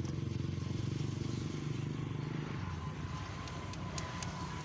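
A motor vehicle engine running close by, a low pulsing rumble that eases off about halfway through. A few faint high clicks near the end.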